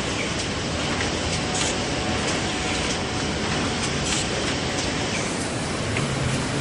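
Automatic rigid-box wrapping machine running: a steady mechanical rush with light clacks at irregular intervals.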